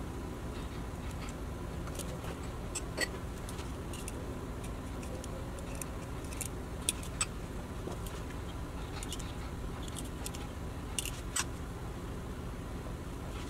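A few light clicks and clinks of a metal spoon against small glass bowls as salad toppings are spooned out, one around 3 seconds in, a pair around 7 seconds and a pair near 11 seconds, over a steady low hum.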